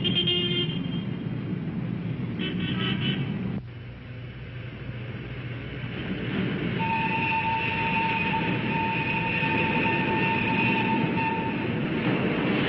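Street traffic noise with two short car-horn toots, then, after a sudden cut, a quieter rumble that builds into the running noise of an underground train. A long steady high tone is held for about four seconds in the second half.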